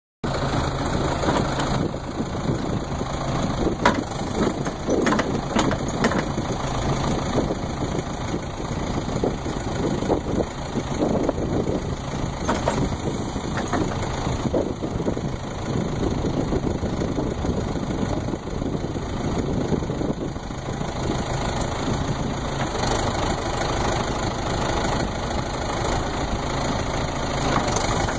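Backhoe engine running steadily, with scattered knocks and clanks as it works, the sharpest about four seconds in.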